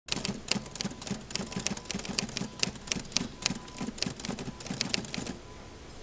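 Typewriter keys clacking in a quick, irregular run of strikes, several a second, stopping shortly before the end.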